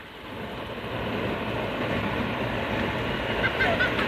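Electric commuter train on the JR Gakkentoshi (Katamachi) Line approaching and running past a level crossing. The rumble of the train grows louder over the first two seconds, then holds steady, with a few brief squeals near the end.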